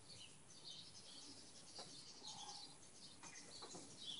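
Near silence with faint birds chirping in the background and a few soft ticks.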